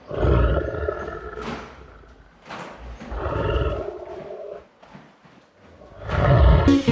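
Lion roaring three times with a rough growl, the last roar the loudest near the end.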